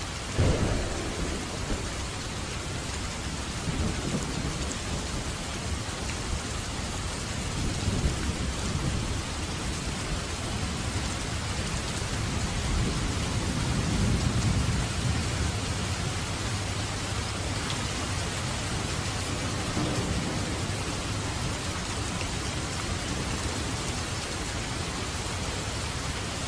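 Steady rain with thunder: a sharp clap about half a second in, then several low rolling rumbles, the longest swelling around the middle.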